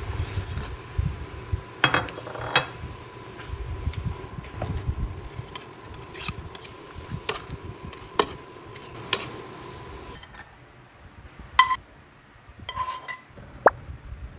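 Kitchen clatter: utensils and dishes knocking and clinking. There are scattered sharp knocks throughout, and a few brighter ringing clinks about twelve to fourteen seconds in.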